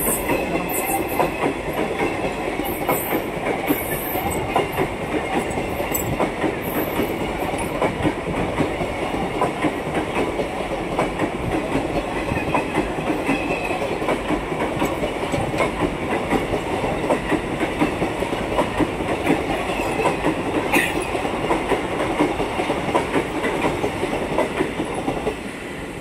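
Express passenger train's coaches passing at high speed right beside the platform: a continuous rumble with rapid clattering of wheels over rail joints. The sound falls away near the end as the last coach goes by.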